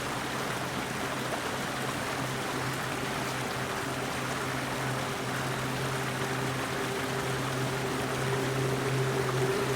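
Water running steadily, with a steady low hum underneath.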